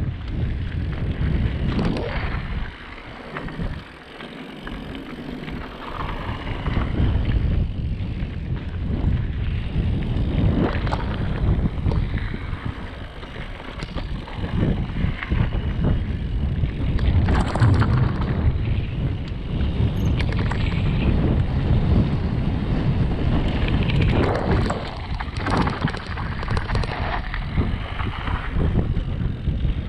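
Wind buffeting a GoPro's microphone on a Radon Swoop 8.0 AL enduro mountain bike running fast downhill, with the tyres' rumble and frequent knocks and rattles of the bike over the trail. It eases briefly about three seconds in, then picks up again.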